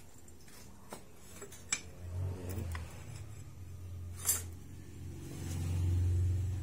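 A few sharp metal clinks and knocks as the steel parts of a rack-and-pinion steering assembly are handled in a bench vise. Under them runs a low motor hum that swells near the end.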